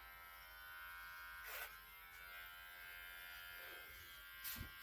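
Electric hair clippers running with a faint, steady buzz during a haircut, with two brief louder bursts, one about a second and a half in and one near the end.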